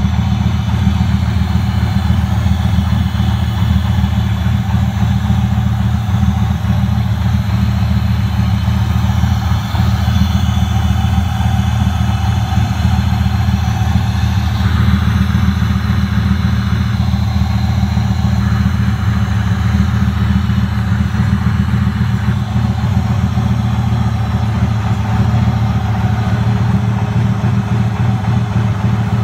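Turbocharged Chevrolet LT1 V8 idling steadily, a continuous low engine drone with a fine rapid pulse.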